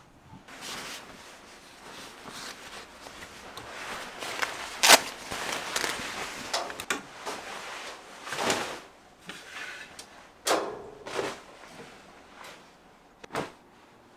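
Clothes being handled at a wardrobe: a series of fabric swishes and rustles as a jacket is pulled out and shaken open, with a few short knocks, the loudest about five seconds in.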